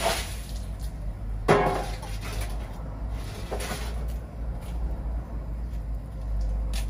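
Cookware being handled: three knocks and clinks, the loudest about a second and a half in with a short metallic ring, over a steady low rumble.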